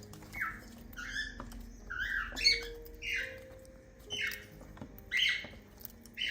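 Cockatiels calling: a string of short chirping calls, about one a second.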